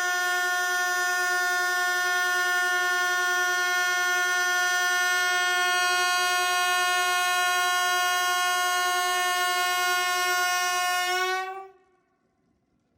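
Horn of a Lastochka ES2G electric train sounding one long, steady blast on a single pitch, as a Victory Day salute. Near the end it bends slightly up in pitch and cuts off suddenly.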